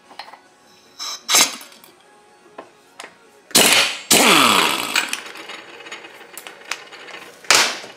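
Pneumatic impact wrench hammering on a chainsaw's clutch in short bursts. There is a brief burst about a second in, a longer loud one around three and a half seconds in that winds down with a falling whine, and another short burst near the end.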